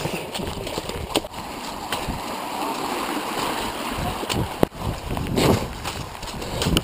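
Wind buffeting and rustling on an action camera worn by a runner running hard uphill over wet grass. Sharp knocks come several times as the camera jolts with the strides.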